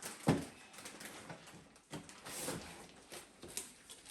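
A few light knocks and handling noises, irregularly spaced, the sharpest about a third of a second in.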